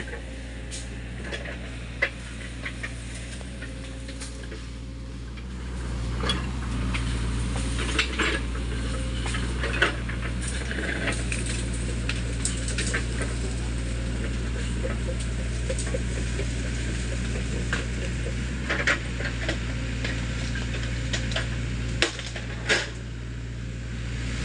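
SANY mini excavator's diesel engine running steadily, growing louder about six seconds in as it works. Frequent sharp clicks and metallic clanks come as the boom and bucket push through brush and mud.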